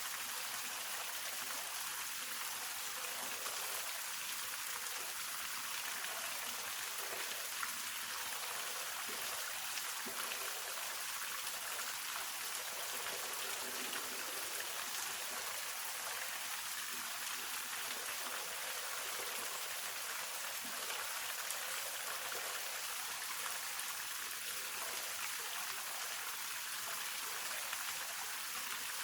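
Hongryu Falls, a waterfall, with water falling and splashing in a steady, unbroken hiss.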